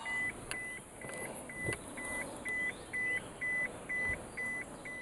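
Car's electronic warning chime beeping steadily inside the cabin, about two short, high, single-tone beeps a second, with a few faint clicks between them.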